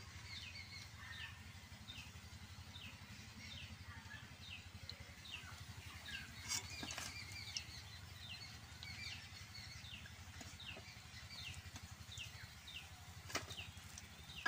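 A bird repeatedly calling short falling chirps, about two a second, with a few sharp clicks of a metal slotted spoon against the aluminium kadai as fried okra is lifted out.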